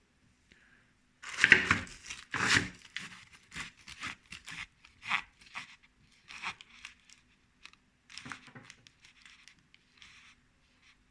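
Oil-covered tool wrapping being torn and crinkled. Two loud rips come a little over a second in, then a string of shorter, fainter crackles.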